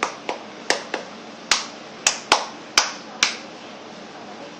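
A series of about nine sharp clicks, spaced unevenly over the first three and a half seconds, then stopping.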